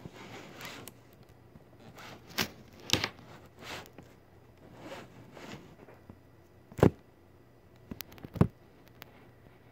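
Rustling and handling noises with several sharp knocks, the loudest about seven seconds in and another about eight and a half seconds in, as of things being moved about in a small kitchen.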